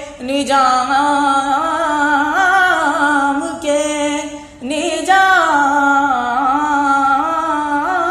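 A young man singing a Sufi qawwali melody in two long, drawn-out phrases with wavering held notes, the second phrase starting about halfway through.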